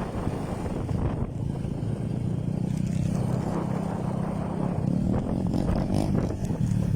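A boat's motor running steadily, with wind buffeting the microphone.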